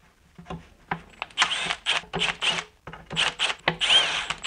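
Cordless power driver whirring in a string of short bursts as it runs screws into a plastic intake manifold, the motor briefly rising and falling in pitch with each pull of the trigger.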